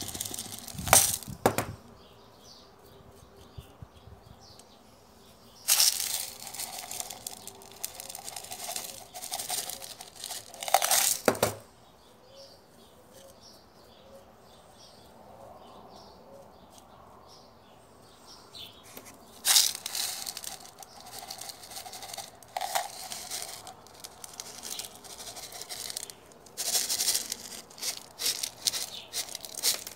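Small white decorative pebbles pouring and rattling out of a metal tin onto potting soil in a pot, in several clattering bursts with quiet pauses between, and the stones clicking as they are nudged into place by hand.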